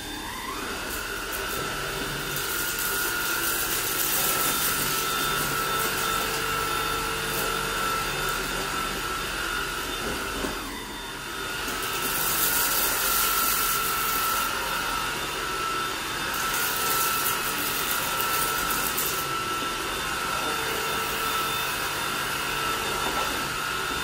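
Hoover ONEPWR Evolve Pet cordless upright vacuum running on its multi-surface setting with the brush roll spinning, picking up rice, oats and fine debris from a bare floor. Its motor winds up to a steady high whine at the start, dips briefly about ten seconds in, then runs on.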